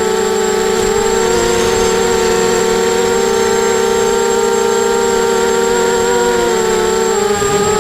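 Eachane Racer-250 racing quadcopter's brushless motors and propellers whining steadily in flight, the pitch wavering slightly with throttle and dipping briefly near the end.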